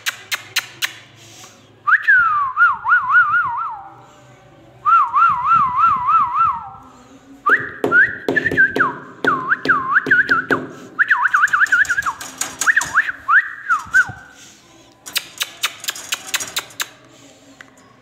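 Repeated warbling whistle phrases, each about two seconds long, the pitch rocking quickly up and down over a few notes. At the start and again near the end come runs of sharp, rapid clicks.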